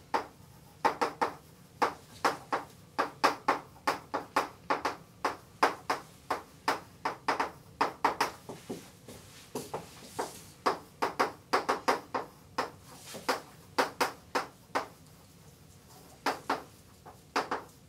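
Chalk writing on a blackboard: an irregular run of short, sharp taps and scratches, about two or three a second, pausing briefly about halfway through and again near the end.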